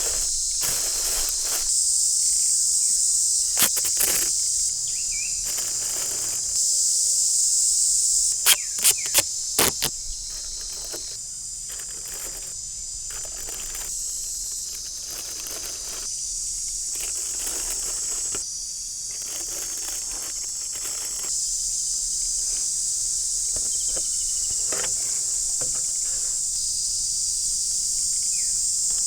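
Steady high-pitched insect chorus, with intermittent rustling and handling noise. A quick run of sharp knocks about eight to ten seconds in is the loudest sound.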